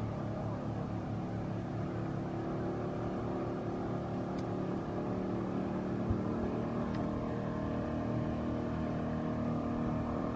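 Outboard motor on a small flat-bottomed fishing boat running steadily under way, a constant engine hum with a few steady tones.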